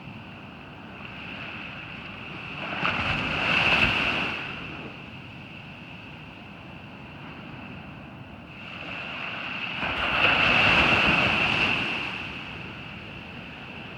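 Ocean surf at a beach: two waves break and wash in, one swelling up about three seconds in and another, longer one around ten seconds in, over a steady wash of sea noise.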